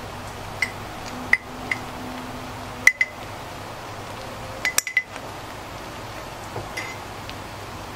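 Sharp clinks of a utensil knocking against a small dish as ground spice is tipped out into the wok, about ten in irregular groups of one to three, each with a brief ring, over a steady low hum.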